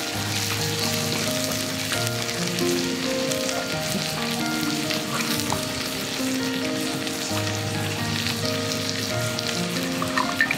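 Background music of slow held notes stepping in pitch over a steady sizzling hiss, with a few light clicks near the end.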